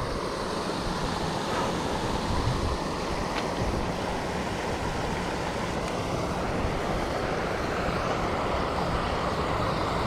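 Steady rushing of flowing creek water, with an uneven low rumble of wind on the microphone.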